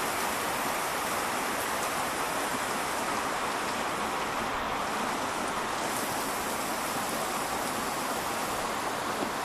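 Heavy rain falling steadily, an even hiss of downpour with no let-up.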